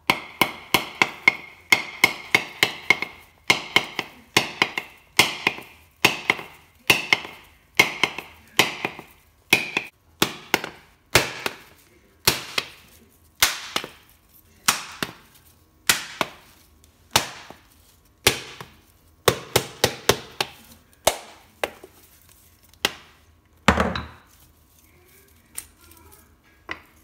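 Hammer striking a whole coconut held in the hand: a long run of sharp knocks, quick at first with a ringing note, then slowing to about one knock a second as cracks open around the shell. The knocks end with a heavier, duller one near the end.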